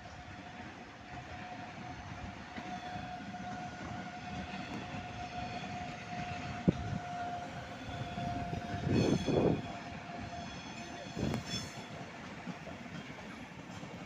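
Train moving through a railway station, running with a steady whine for the first half over a low rumble. A sharp click comes about six and a half seconds in, then louder clattering around nine seconds and again around eleven seconds.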